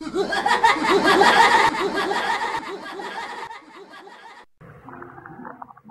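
A gravelly, gargling creature's cackling laugh, about three or four quick cackles a second, loud at first and fading away over about four seconds. Faint music begins near the end.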